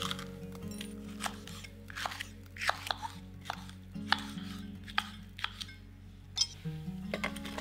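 Kitchen knife chopping long green chili peppers on a wooden cutting board: a series of sharp cuts at an uneven pace.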